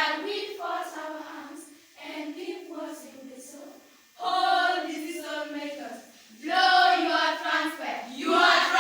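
A group of children singing together in unison, in phrases broken by short pauses.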